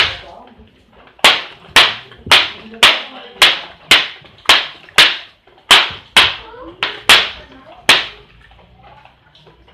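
Barongan (lion-dance head) jaw repeatedly snapped shut, making loud sharp clacks about two a second in an uneven rhythm. The clacking stops shortly before the end.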